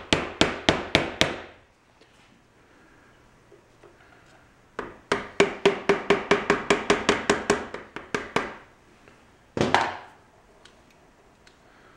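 Hammer tapping a screwdriver wedged into the seam of an electric motor's friction-fit aluminum end cover, to drive the cover off the housing. A quick run of taps, a pause, then a longer, faster run of about twenty taps with a faint metallic ring, and one heavier knock near the end.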